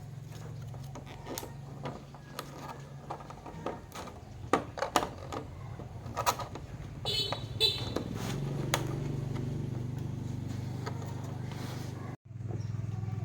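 Scattered sharp clicks and knocks over a steady low hum, with two brief high squeaks about seven seconds in. The sound cuts out abruptly near the end.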